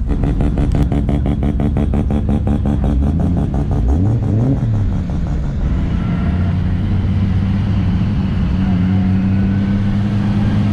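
Turbocharged car engine running. A rapid, even pulsing comes first, then a brief rev that rises and falls about four seconds in, then a steady drone.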